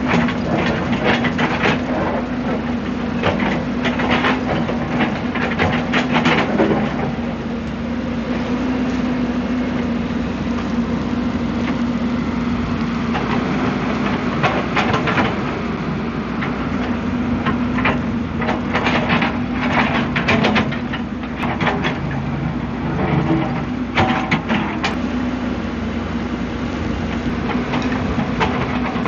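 Hyundai R190W-9 wheeled excavator's diesel engine running steadily under load while digging, with repeated bursts of clattering and scraping from the bucket working soil and stones.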